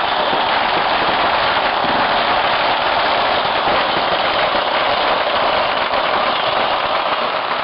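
Fireworks and firecrackers going off in great numbers at once, making a dense, unbroken crackle of countless tiny pops with no pause.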